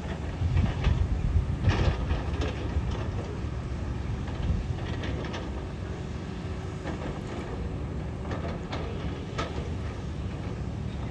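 Heavy construction machinery running with a steady low engine rumble and scattered metallic clanks, louder in the first two seconds.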